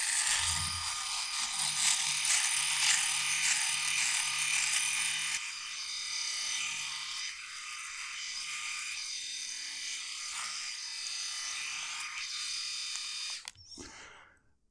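Philips S9000 rotary electric shaver running steadily with a high buzz while shaving the upper lip. It becomes a little quieter after about five seconds and switches off near the end.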